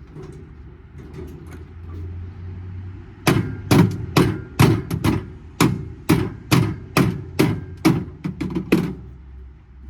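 A run of about fourteen hard hammer blows on metal, roughly two a second, starting about three seconds in and stopping near the end: scrap metal being knocked apart from an air-conditioning unit.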